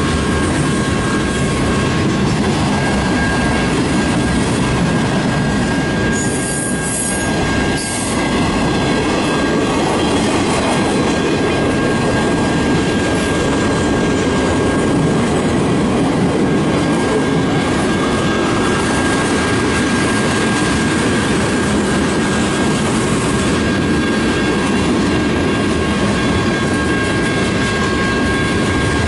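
Canadian National freight train cars rolling past, a steady loud rumble of wheels on the rails with a thin, continuous high-pitched wheel squeal over it.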